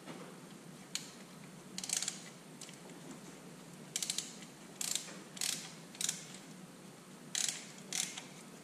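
Manual chain hoist worked by hand to lower a cylinder head onto an engine block: short bursts of ratchet clicking and chain rattle, about eight pulls, coming closer together in the second half.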